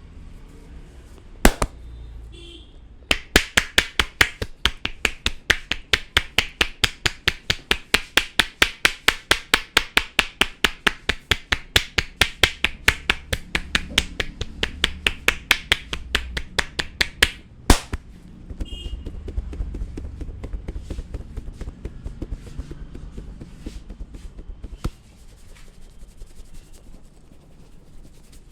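Barber's scissors snipping rapidly and evenly beside the head, about four or five crisp metallic snips a second for roughly fourteen seconds, after one lone snip. The snipping is followed by softer rubbing on the scalp with an occasional click.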